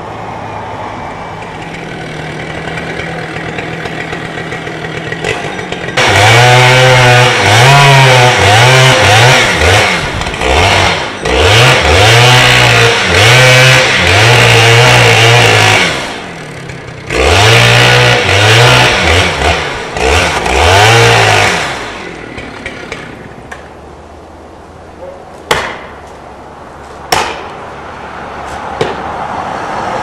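Chainsaw idling, then run at full throttle in two long cuts into the trunk of a large tree, its pitch dipping and climbing as the chain loads in the wood, then dropping back to idle. Two sharp knocks sound near the end.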